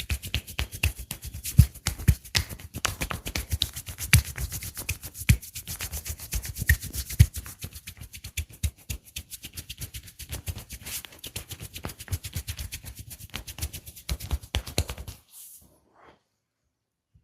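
A barber's hands massaging close to the microphone: fast rubbing and tapping strokes, about ten a second, that stop suddenly about fifteen seconds in.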